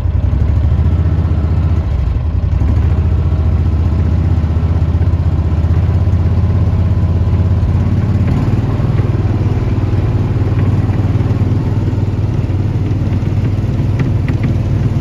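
Engine of a Gator utility vehicle running steadily, heard from on board as it tows a rider on a snowboard by rope; its note changes about eight seconds in.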